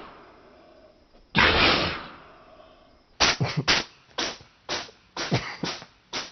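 Cat sneezing: one forceful sneeze about a second and a half in, then a rapid run of short, sharp sneezes from about three seconds on, roughly two or three a second.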